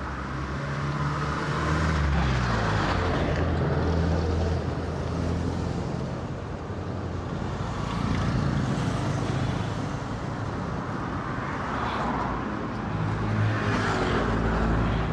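Road traffic with motor vehicles passing by, one swelling up and fading away at a time, about three times.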